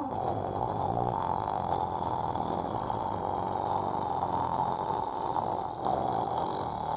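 A person snoring steadily.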